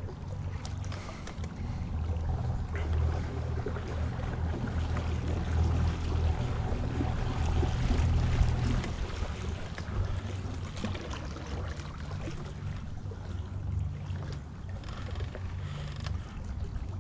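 A small boat motor pushing a canoe, running steadily with a low hum.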